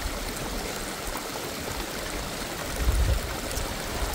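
Creek water running steadily with an even rushing sound. A brief low rumble comes about three seconds in.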